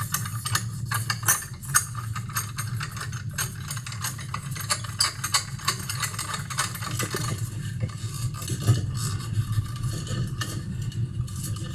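Metal parts of a light fixture being handled and screwed together by hand: a dense run of small clicks, rattles and scrapes, over a steady low hum.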